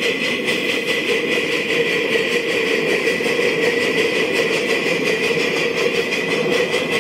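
Little Engines 2-6-0 live steam locomotive running along the track, a steady sound with a fast, even beat.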